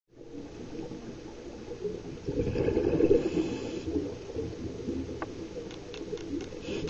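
Muffled underwater sound: a steady low water rumble that swells into a louder gurgle for a second or so between about two and four seconds in.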